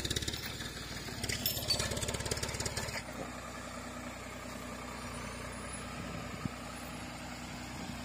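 A tractor engine running as it drags a log by cable. About three seconds in the sound changes abruptly to a steadier, quieter engine drone as the tractor skids the log along a dirt track.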